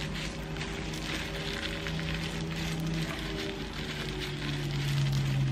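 Soft background music of long held notes, over a steady crackling rustle of plastic-gloved hands squeezing and mixing raw chicken and shredded cabbage.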